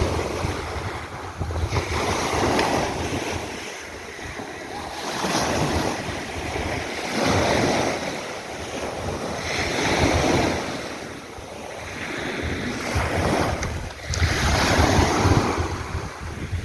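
Sea waves breaking and washing up, swelling and fading every two or three seconds, with wind buffeting the microphone.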